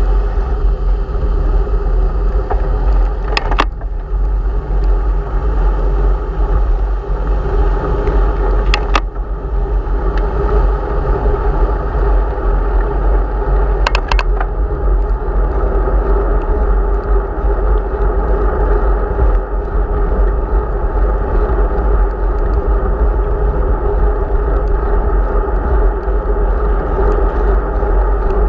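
Steady wind and rolling noise on the microphone of a camera riding on a bicycle, strongest in the low rumble. Three brief clicks come about three and a half, nine and fourteen seconds in.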